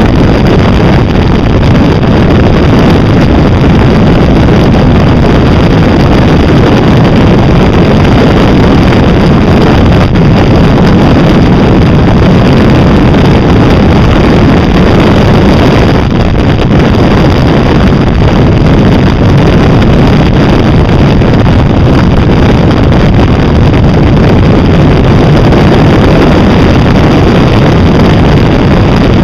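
Loud, steady wind rush on a Can-Am-mounted camera's microphone at road speed, mixed with the Can-Am running underneath.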